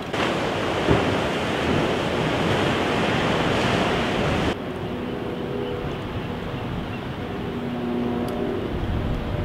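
Ocean surf breaking and washing over rocks, a dense rush mixed with wind, with a brief knock about a second in. About halfway through it drops abruptly to a quieter wash with a faint steady hum underneath.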